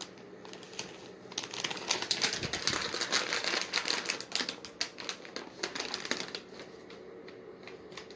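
Rapid clicking and crinkling of a pet-treat package being handled and rummaged through, busiest in the middle and dying down near the end.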